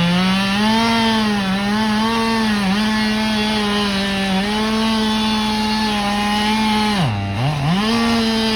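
Two-stroke chainsaw cutting into a tree trunk, held at high revs with small dips as the chain bites. About seven seconds in, it drops briefly toward idle, then revs straight back up.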